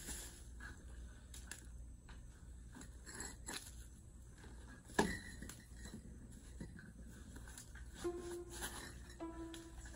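Faint scraping and handling sounds from hand work on fresh concrete, with one sharp knock about five seconds in.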